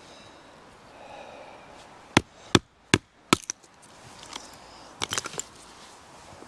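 A wooden baton strikes the spine of a bushcraft knife, driving the blade down through a piece of wood on a stump to split kindling. Four sharp knocks come about 0.4 s apart a little after two seconds in, followed by a few lighter knocks around five seconds.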